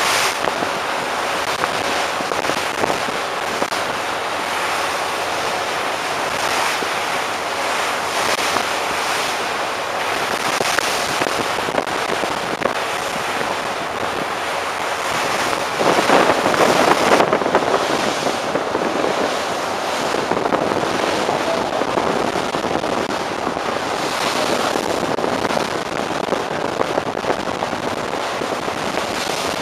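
Wind buffeting the microphone on an open ship's deck over the rush of the sea along the hull, with crackling gusts coming and going and a louder gust about halfway through.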